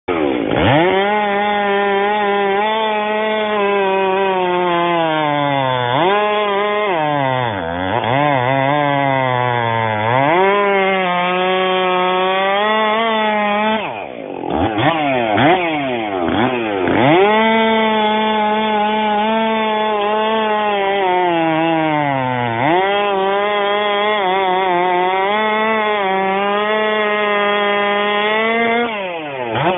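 Stihl MS 362 C-M R two-stroke chainsaw with a 20-inch bar, run at high revs while sawing sugi (Japanese cedar). The engine pitch sags under load and recovers several times. About halfway through, the revs drop off briefly and then climb back.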